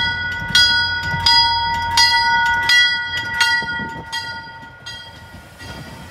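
Commuter rail train's bell ringing about once every 0.7 seconds, fading out about five seconds in, over the low rumble of the coaches rolling along the track.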